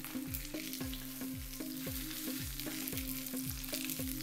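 Hot oil sizzling and crackling in a nonstick frying pan around a salmon fillet as it is lifted out with a spatula. Background music with a steady beat plays underneath.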